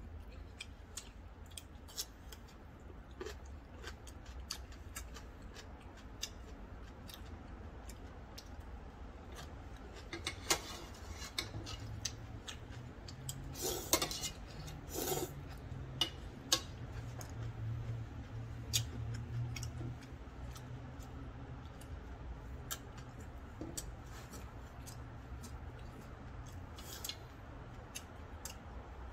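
Close-up eating sounds: chopsticks clicking against a thin aluminium ramyeon pot, with chewing and mouth clicks. Several loud slurps of noodles come about halfway through.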